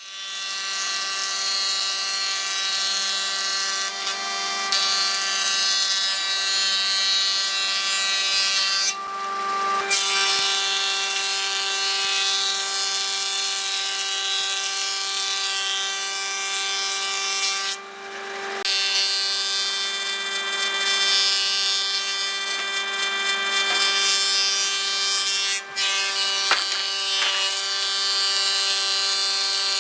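Thickness planer of a combination woodworking machine running with a steady whine while its cutterhead planes boards being fed through, with two brief dips in the sound.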